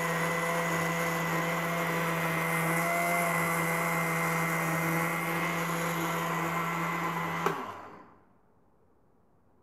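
Electric mixer-grinder motor running at a steady speed with a constant hum, blending a milkshake. About seven and a half seconds in it is switched off with a click, and the motor winds down to near silence.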